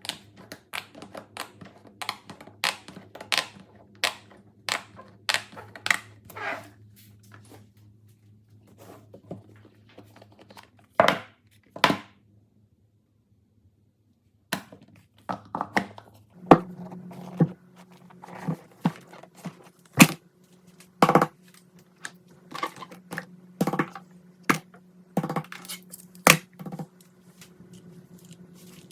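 Fidget toys being handled: a long run of sharp clicks, taps and light knocks. There is a brief silent gap about halfway through, and a low steady hum sits underneath.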